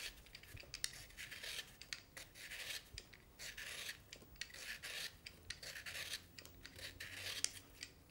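Faint, repeated rasping scrapes of a small blade peeling the skin off a pear, short strokes one after another at an irregular pace.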